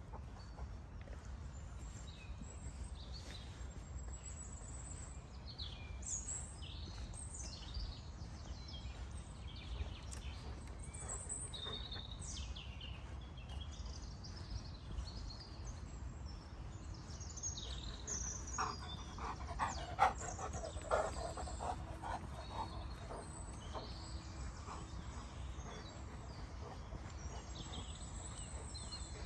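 Woodland birds chirping and trilling, several calls overlapping, over a steady low rumble. About two-thirds of the way through comes a short run of sharp knocks or crunches, the loudest sounds here.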